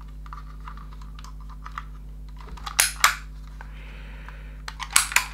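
Plastic clicking of a Dymo Omega embossing label maker being worked by hand: light ticks, then two sharp loud clicks about three seconds in as the trigger is squeezed to emboss and feed the tape through, a brief scraping rustle, and more clicks near the end.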